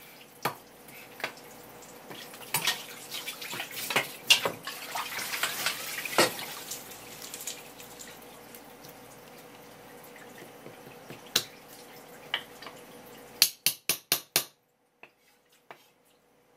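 Kitchen work at a wooden cutting board: scattered knocks and taps, with water running or splashing for a few seconds in the first half. A quick run of about five sharp clicks comes near the end.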